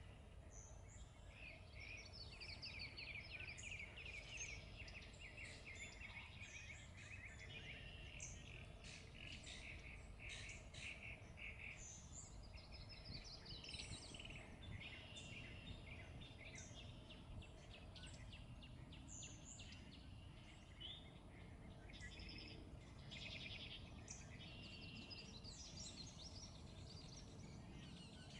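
Faint songbirds singing, repeated chirps and rapid trills, over a low steady background rumble.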